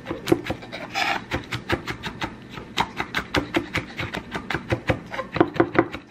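Chef's knife mincing garlic cloves on a wooden cutting board: a fast, even run of blade strikes against the board, about five a second.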